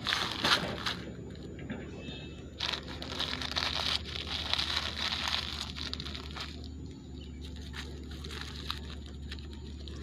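Plastic wrappers crinkling and rustling as they are stuffed by hand into a plastic carry bag, in two spells, the second longer, then quieter after about six seconds.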